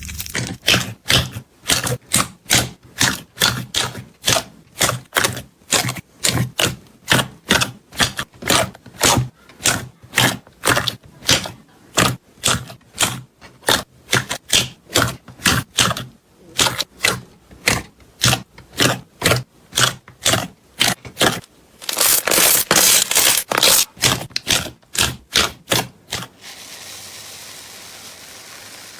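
Slime being squeezed and pressed by hand: a steady run of crackly pops, about two or three a second, with a longer unbroken crackle about three quarters of the way through. It gives way to a faint hiss near the end.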